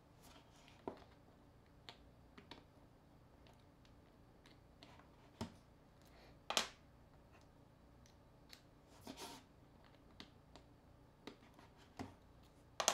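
Scattered small clicks and taps of precision hand tools working on a mobile phone being taken apart, with a sharper snap about six and a half seconds in and another near the end.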